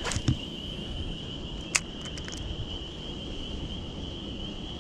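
Steady high-pitched trill of insects, with a single sharp click a little under two seconds in and a low rumble of wind underneath.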